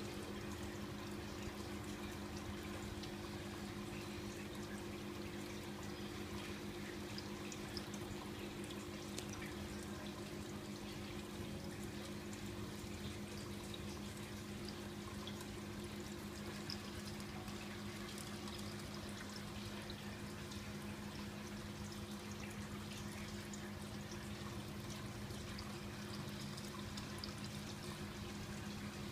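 Aquarium filtration running: a steady trickle and bubbling of water, with a constant low hum from the pump.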